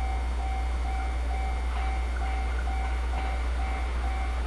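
Railway electronic warning beeper sounding a single steady tone on and off about twice a second over a steady low rumble, the alarm that a train is approaching.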